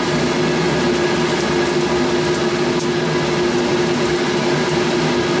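Coarse salt poured from a shaker onto a hot iron griddle, the grains landing as faint scattered ticks over a steady hum with a constant low tone.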